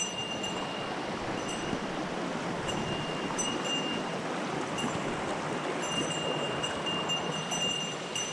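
Small mountain stream rushing steadily over rocks, with faint thin high tones that come and go.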